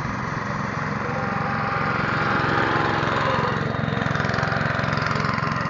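Walk-behind greens mower's small petrol engine running steadily as the reel cuts the turf, growing louder as it passes close by about halfway through, then easing off.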